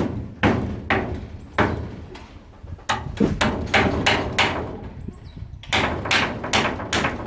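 Repeated sharp knocks of a tool striking wood. They come one at a time at first, then in a quick cluster about three seconds in, then in a faster run of about three strikes a second near the end.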